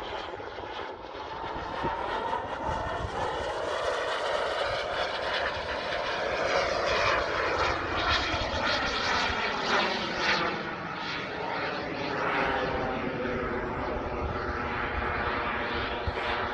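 Turbine engine of a 2.5 m radio-controlled F-16 model jet running continuously as it flies overhead. The jet noise grows louder toward the middle and then eases, with a slow sweeping, phasing shift in tone as the jet moves across the sky.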